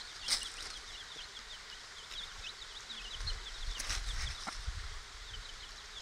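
Chicks less than a week old peeping: many short, high cheeps overlapping, thick through the first half and thinning out later. A low rumble rises about halfway through.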